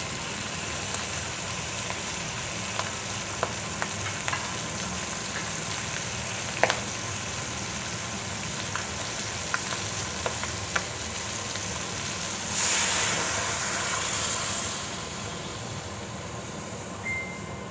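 Pork, squash and chayote sizzling in a pot on a gas burner, a steady hiss with scattered sharp pops. About thirteen seconds in, the sizzle rises into a louder rush for a couple of seconds as coconut milk is poured into the hot pot.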